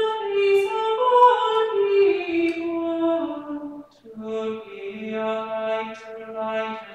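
Unaccompanied singing in slow, long-held notes: a higher line steps downward, breaks off about four seconds in, and the singing resumes with a lower voice.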